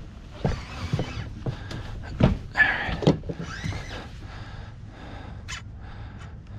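Knocks and bumps on the deck of a small fiberglass boat during the fight with a hooked jack crevalle, with a short rush of splashing about two and a half seconds in as the fish thrashes at the surface by the outboard. Wind rumbles steadily on the microphone.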